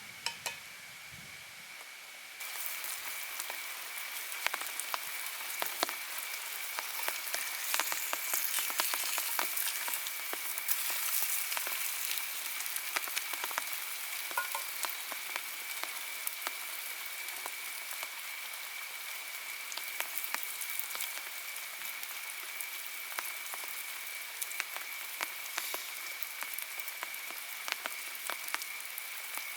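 Rain falling steadily, its drops pattering and ticking densely on surfaces, growing heavier about two seconds in. A thin, steady high tone runs underneath.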